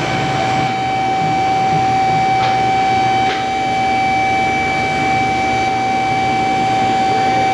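Electric hydraulic pump motor of an alignment-rack lift running steadily with a constant whine as it raises the vehicle.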